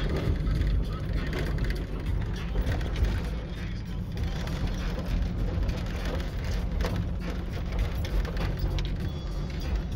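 Off-road vehicle driving along a rough dirt trail, heard from inside the cab: a steady engine and tyre rumble with scattered knocks and rattles from the bumps.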